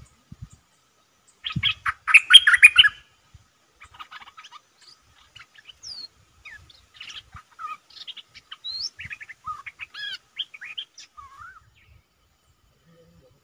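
Small songbird calling: a loud burst of rapid chirps about two seconds in, then scattered chirps and short whistled notes that slide up and down, dying away near the end.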